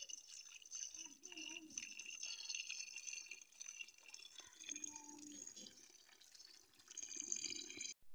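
Tap water pouring and splashing into a steel pot of rice while a hand swishes the grains to wash them. The splashing stops abruptly near the end.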